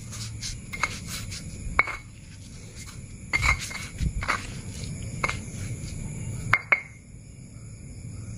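Stone pestle grinding a soft tempeh fish-bait paste in a stone mortar: a low scraping rub broken by irregular sharp clinks of stone on stone, the loudest two close together near the end, after which the grinding stops.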